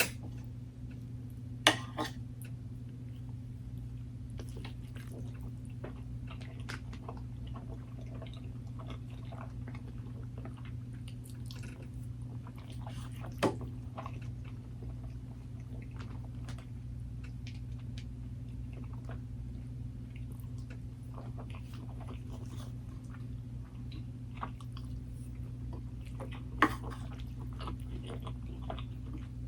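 Close-miked chewing with wet mouth clicks as a person eats, over a steady low hum. Three sharper clicks stand out, about two seconds in, midway and near the end.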